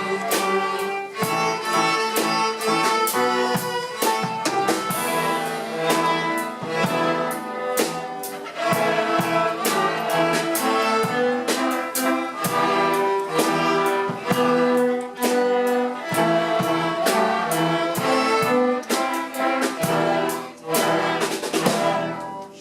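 A children's string ensemble of violins and other bowed strings playing a lively piece over a steady drum beat; the music stops right at the end.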